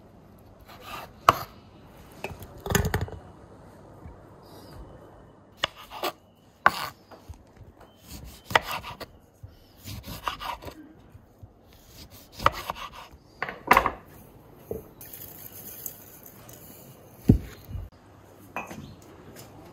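Knife cutting tangerines and a lemon on a wooden cutting board: irregular sharp knocks of the blade on the board, with rubbing and handling of the fruit and peel between them. A deeper thump comes near the end.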